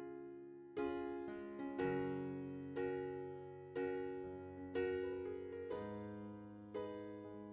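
Background keyboard music, a chord struck about once a second and left to fade.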